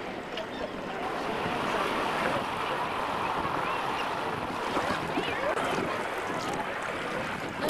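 Sea waves and wind buffeting the microphone, a steady rushing noise.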